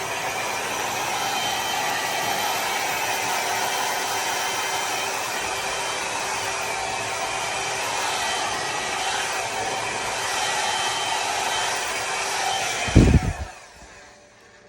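Compact 1200 W LURA foldable travel hair dryer running: a steady blowing whir with a faint motor whine. About 13 seconds in, a loud low thump, and then the airflow dies away as the dryer is switched off.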